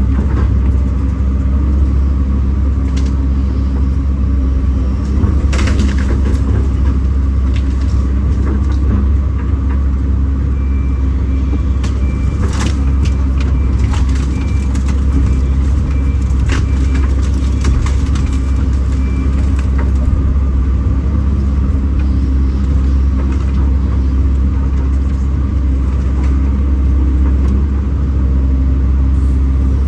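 Kobelco SK210 excavator's diesel engine running steadily under work, with a few sharp knocks and, for several seconds in the middle, a faint repeated high beep.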